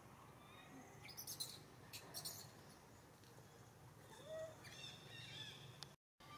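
Faint bird chirps: short high calls about one and two seconds in, then a longer run of chirps around four to five seconds in, over a quiet low background hum. The sound drops out briefly near the end.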